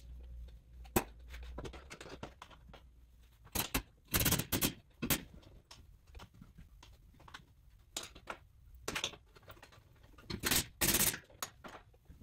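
Hand-polishing a bright aluminium door frame with a rag: scattered clicks and taps, with short scrubbing swishes about four seconds in and again near the end.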